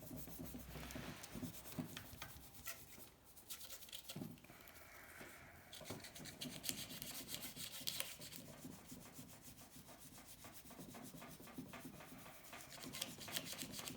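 A toothbrush scrubbing by hand on a cast-aluminium engine case, a fast, dense run of scratchy rubbing strokes.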